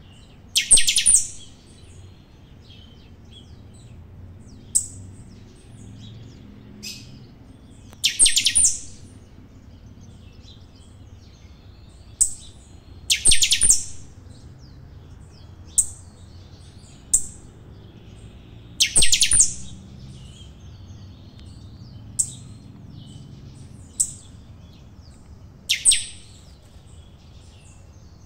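Caged saffron finch (canário-da-terra) singing: loud, high song phrases about every five or six seconds, with short single chirps in between.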